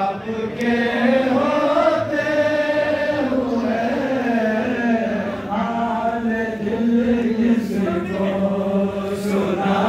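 A man chanting a naat, an Islamic devotional poem, in slow sung recitation with long held notes that waver in pitch, amplified through a microphone.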